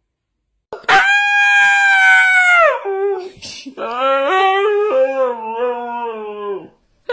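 Husky howling: a long, high, held howl that drops in pitch at its end, then a lower, wavering howl of about three seconds.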